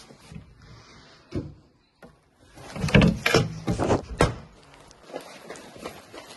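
Locker doors being handled: a single knock about a second and a half in, then a quick run of loud knocks and bangs for about a second and a half, a little under three seconds in.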